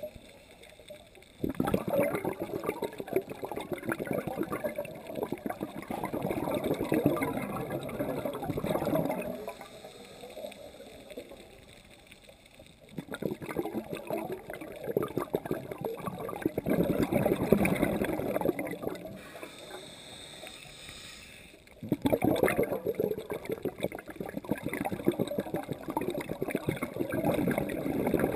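Scuba diver's exhaled air bubbling from the regulator underwater, in three long bubbling exhalations with quieter pauses for inhaling between them.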